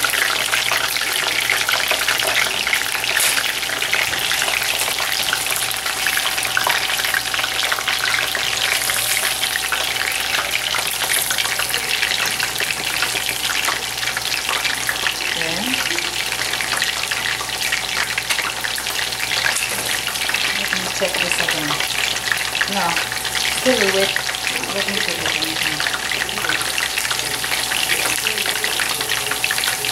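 Corn tortilla pieces deep-frying in hot oil in a skillet: a steady crackling sizzle as the oil bubbles around them while they crisp into chips.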